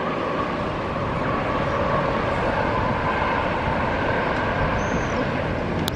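Electric train running past, a steady rumbling noise with faint whining tones, and a sharp click near the end.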